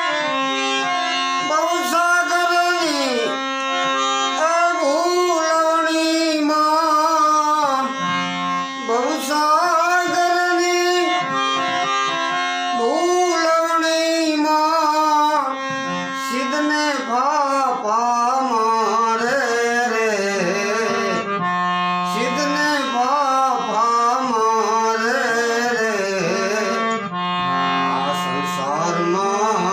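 Gujarati devotional bhajan music between sung verses: a melodic lead line over held drone notes, with tabla keeping time.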